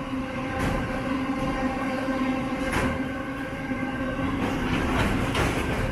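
Open-top hopper wagons of a freight train rolling past with a steady rumble and a humming tone underneath. A few sharp clacks come irregularly as the wheels run over the rail joints.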